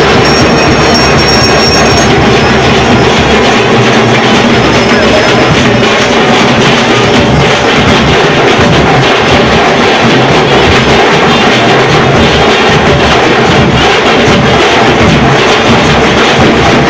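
Loud festival music with dense, continuous drumming, running without a break.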